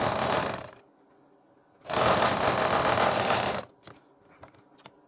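Sewing machine stitching through fabric in two runs: the first stops under a second in, and the second starts about two seconds in and stops about a second later. A few light clicks of handling follow near the end.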